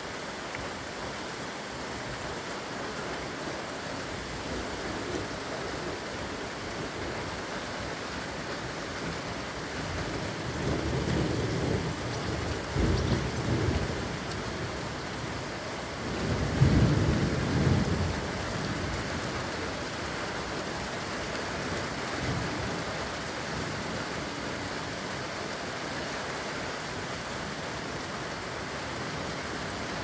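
Steady rain with thunder during a thunderstorm: low rumbles swell from about ten seconds in, and the loudest peal comes a little past halfway, dying back to the rain within a couple of seconds.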